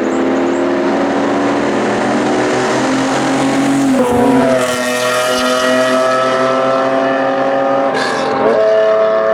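Exhaust note of a Nissan Skyline GT-R KPGC10's S20 straight-six through a Power Craft exhaust, pulling under acceleration. The pitch climbs steadily, drops sharply about four seconds in and again near the end with each upshift, then climbs again.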